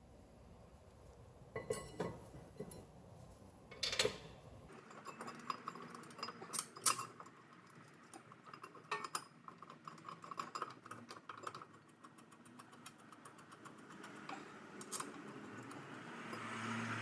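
Metal brake parts and hand tools clinking and knocking in a series of sharp clicks as the rear brake assembly is handled and fitted back together.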